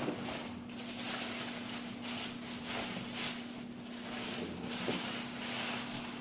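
Gift-wrapping paper rustling and tearing in repeated short bursts as a present is unwrapped, over a steady low electrical hum.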